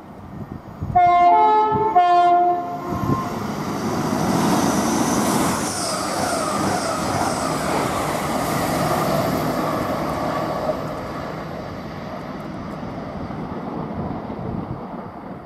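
Train horn sounding two notes in quick succession, low then high, about a second in, a warning to track workers on the line. Then the train passes through at speed, its running noise swelling and then fading away over about ten seconds.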